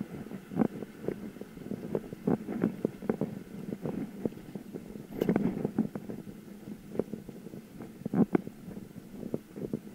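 Bicycle riding over an uneven road surface: irregular knocks and rattles over a low rumble.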